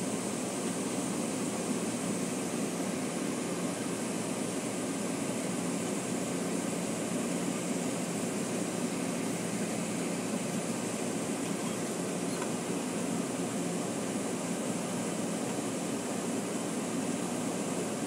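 Steady running noise of a moving Muni transit vehicle, heard from inside the passenger car.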